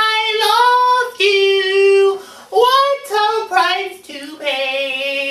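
A man singing in a high voice with no accompaniment: a run of long held notes, each phrase about a second long, broken by short breaks.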